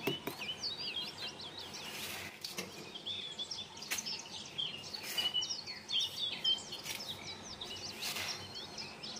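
Many small birds chirping at once, short overlapping calls throughout, with a few faint clicks now and then.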